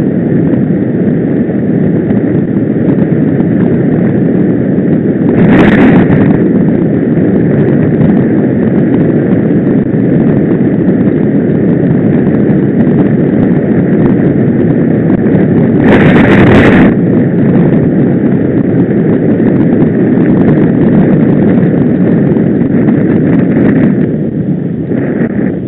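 Wind buffeting the microphone of a camera riding on a moving bicycle, a steady loud rush mixed with road rumble. There are two louder gusts, about six seconds in and about sixteen seconds in.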